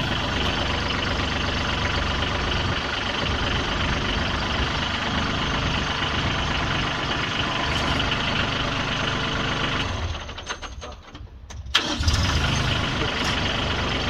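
Branson compact tractor's engine running steadily while the tractor is reversed slowly. The sound cuts out for under two seconds about ten seconds in, then comes back.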